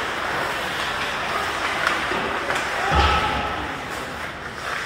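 Ice hockey game ambience in a rink: a steady murmur of spectators' voices and scattered clicks of play, with one heavy thud about three seconds in.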